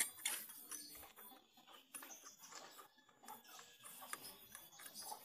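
Faint, irregular metallic clicks and scrapes as the Honda Vario's CVT front drive pulley is worked by hand on its shaft. The pulley does not sit tight, which the mechanic puts down to rust.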